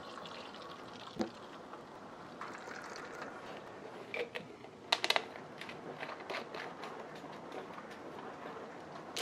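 Plastic PET beer bottle filling from a fermenter's tap, then its plastic screw cap twisted shut in a run of small clicks and ticks from about four seconds in.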